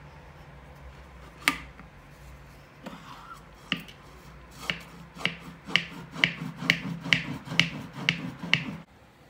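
Glass French press plunger pumped up and down to froth milk: a couple of separate clicks, then a steady run of about nine clicks, roughly two a second, with the milk churning low between strokes, stopping suddenly near the end.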